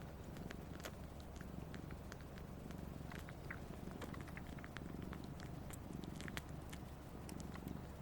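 Siamese cat purring steadily while suckling on a person's finger, with many small quick sucking clicks over the purr. This is kitten-style nursing behaviour.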